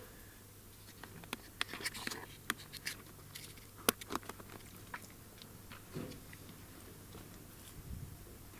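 Plastic retaining clips being slid sideways into the slots of a plastic windscreen cowl panel by hand, giving a string of small plastic clicks and snaps, the sharpest about four seconds in.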